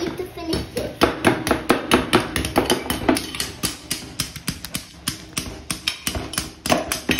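A metal spoon and a small hammer striking and chipping at a ball of ice in a plastic tub: quick, irregular sharp knocks, several a second.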